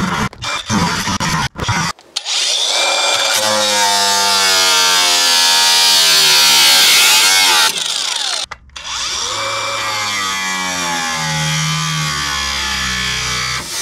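Angle grinder with a cutting disc cutting through rusted steel wheel-arch panel. It gives a few short bursts, then a long cut in which its pitch sags as the disc bites. It stops briefly past the middle, then spins back up and cuts on.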